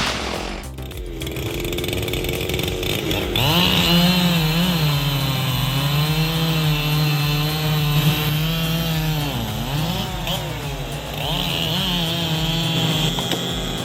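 Chainsaw running at high revs, its engine note rising sharply about three seconds in and holding steady, with brief dips in pitch near ten seconds in as it works through the wood.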